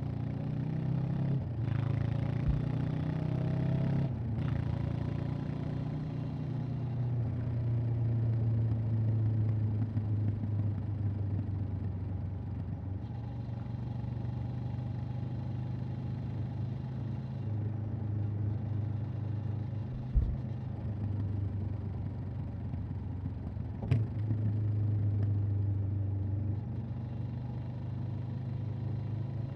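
Honda CB500X parallel-twin engine and exhaust under way: the pitch rises through the gears in the first few seconds, breaking briefly at each shift, then the bike cruises steadily with small throttle changes. A short low thump comes about 20 seconds in and a sharp click about 24 seconds in.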